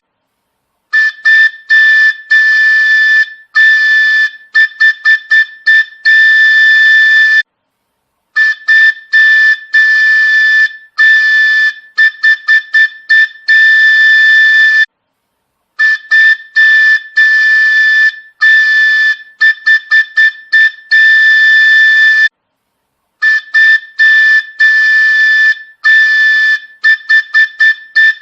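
Train horn sound effect: one high-pitched steady tone blown in a pattern of long blasts and quick runs of short toots. The sequence repeats about every seven and a half seconds, with a pause of about a second between repeats.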